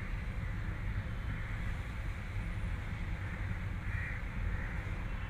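A crow cawing a few times over a steady low rumble.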